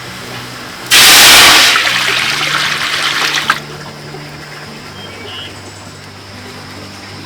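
A sudden rush of water, like a gush or splash, lasting about three seconds: loudest at the start, then tailing off before it stops.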